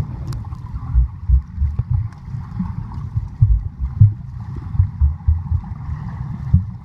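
Irregular low rumbling buffets on the microphone over a steady wash of water noise: wind and water sloshing against a handheld camera at a water park pool.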